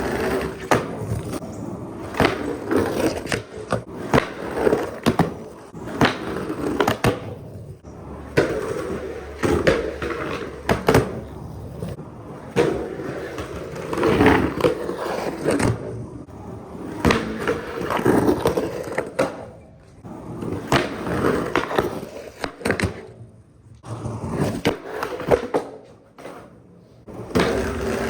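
Skateboard wheels rolling continuously, the rumble swelling and fading every two to three seconds as the rider pumps and wiggles the board to keep speed without pushing. Sharp clicks and knocks from the board come through it.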